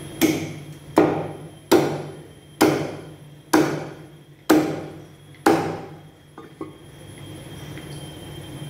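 Butcher's cleaver chopping a rack of mutton ribs into chops on a wooden stump block: seven sharp chops about a second apart, each blade striking through into the wood, then a couple of light taps.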